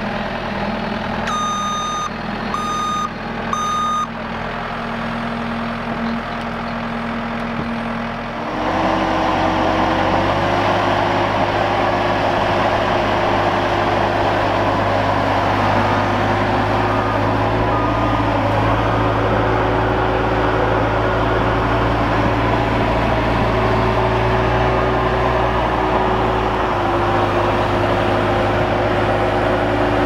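Bobcat skid-steer loader's engine idling, with three short reversing beeps about two seconds in. About a third of the way in the engine is throttled up and runs steadily louder and higher as the loader lifts and carries a log, with a few faint beeps again about halfway through.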